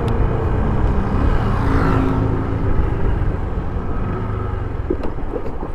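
Motorcycle riding at road speed: a steady engine and road rumble with wind noise on the microphone.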